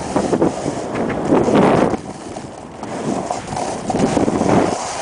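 Skis scraping and hissing over snow through a run of turns, swelling about once a second, with wind buffeting the microphone.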